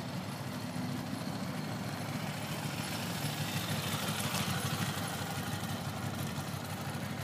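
Ducati motorcycle engine running at low revs as the bike rides a slow, tight turn, a little louder around the middle as it passes closest.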